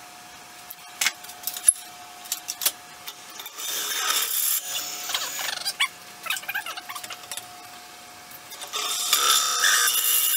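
Wood lathe running with a steady motor hum while a drill bit in a tailstock Jacobs chuck bores into the centre of a spinning cedar-and-epoxy-resin bowl blank. The cutting comes in scraping spells, with a few sharp clicks in the first three seconds, and turns louder and continuous near the end.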